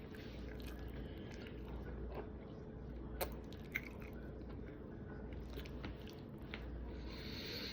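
A person chewing and biting food close to the microphone, with soft wet mouth sounds and two short sharp clicks about three and four seconds in, over a steady low hum.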